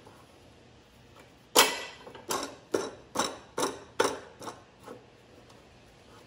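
The steel vise on an Evolution R355 metal chop saw being cranked tight on a piece of angle: about a second and a half in, a loud metal click, then a run of clicks about two or three a second that grow fainter.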